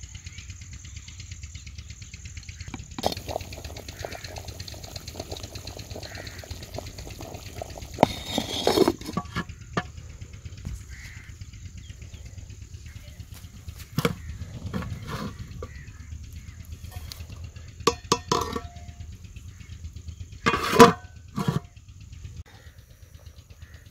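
Steel cooking pot with an ember-covered lid lifted off a brick fire and set down on the ground: scattered metallic clinks and knocks of pot, lid and cloth. The loudest comes near the end, with a short ring. Under them runs a steady low engine hum.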